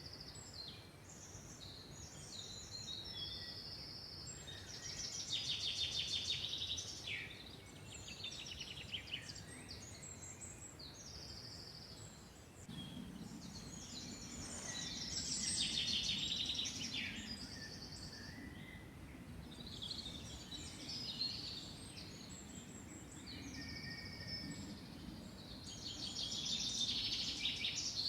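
Several songbirds singing at once in a forest, with overlapping trills and short whistled phrases that swell and fade in turns. A low, steady rumble comes in about halfway and stays under the song.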